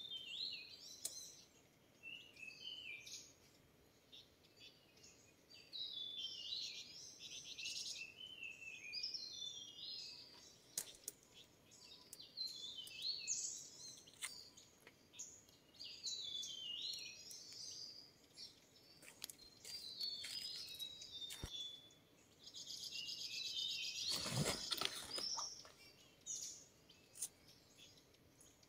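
Small birds chirping and twittering, many short quick notes throughout, with a few faint clicks and a brief louder rustle of handling or brush near the end.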